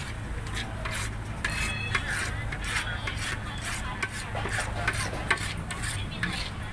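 Metal ladle scraping and knocking against a large brass pan as thick coconut cream topping is scooped into clear plastic takeaway boxes, in repeated irregular scrapes and clicks. A steady low hum runs underneath.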